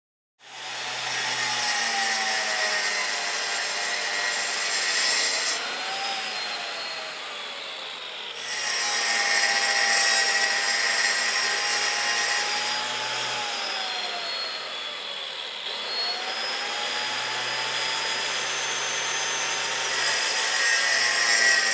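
Small walk-behind concrete saw, a dust-shrouded angle-grinder-type saw on a wheeled cart, cutting a concrete slab with a diamond blade. Its motor whine sags and recovers as the blade bites. The cutting sound breaks off briefly twice.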